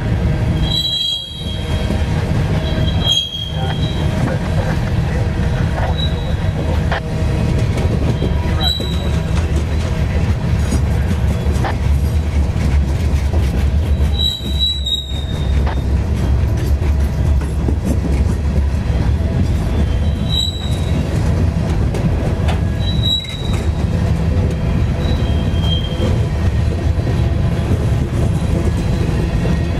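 Freight train's covered hopper cars rolling past close by: a steady rumble of steel wheels on the rails, with short high-pitched wheel squeals about half a dozen times.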